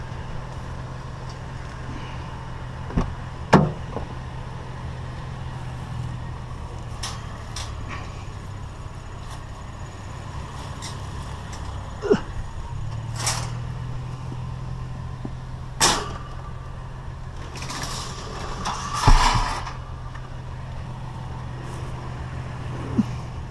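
Truck engine idling steadily under a series of sharp clanks and knocks as scrap is handled and loaded, with a brief rattle about three-quarters of the way through.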